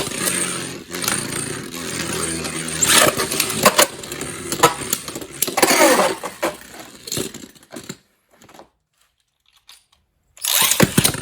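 Beyblade tops launched into a stadium, spinning with a steady whir and clashing with sharp clicks. They slow with a falling pitch and go quiet about eight seconds in, and another launch starts near the end.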